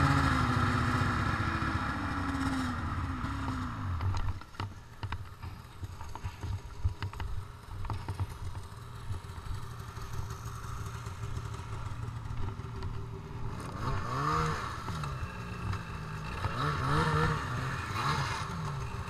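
Snowmobile engine slowing from running to a low idle in the first few seconds, then idling under scattered clicks and knocks. Near the end it is revved twice, each rev rising and falling.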